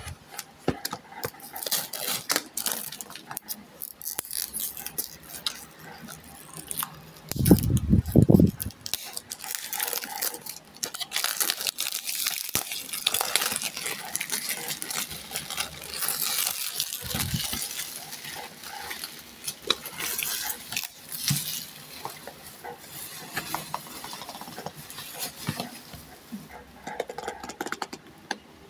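Plastic shrink wrap on a trading card box crinkling and rustling as it is handled and cut open, with clicks from the cardboard and a heavy handling thump about eight seconds in, the loudest sound, and a smaller one later.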